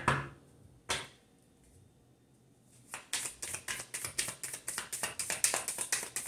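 A deck of tarot cards shuffled overhand by hand: two single taps near the start, a pause, then a rapid run of card slaps, several a second, from about three seconds in.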